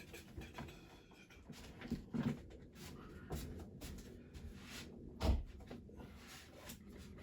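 Small clicks, knocks and rustles of hands working at a bench, handling masking tape and the primed diecast van casting, with one louder thump about five seconds in.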